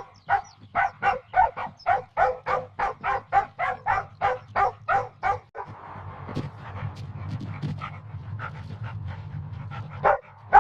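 Small dog barking in a rapid run of short yaps, about four a second, for about five seconds. Then come a noisier stretch with fainter, scattered barks and a louder bark near the end.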